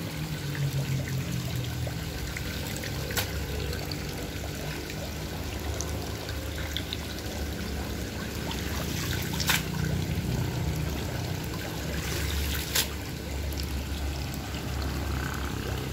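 Water pouring and trickling steadily into a concrete koi pond, over a low steady hum, with three short sharp clicks along the way.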